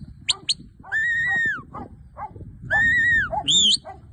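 Shepherd's whistle commands to a working sheepdog. A couple of short sharp chirps come first, then two long level whistles about two seconds apart, then a quick rising chirp near the end. A steady low rumble runs underneath.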